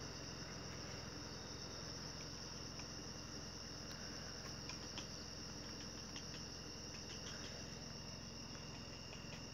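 A steady, high-pitched chorus of insects chirring, with a few faint clicks in the middle.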